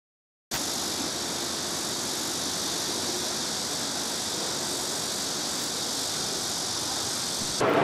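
Steady outdoor background noise, mostly a high hiss, starting abruptly about half a second in. Near the end it cuts to a louder, fuller noise.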